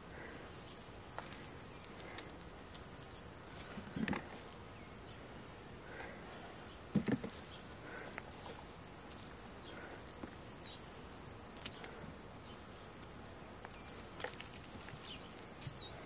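Steady high-pitched drone of insects, typical of crickets, with scattered faint rustling of hands digging in loose potting soil and two soft thumps, about four and seven seconds in.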